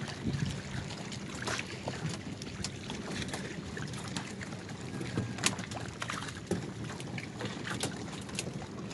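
Water lapping against the side of a small outrigger canoe, with scattered small knocks and clicks from handling on board and a sharper click about five and a half seconds in.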